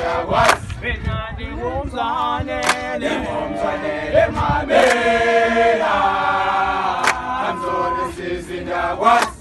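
A group of young men singing a call-and-response isiXhosa song together, unaccompanied, in held chant-like phrases.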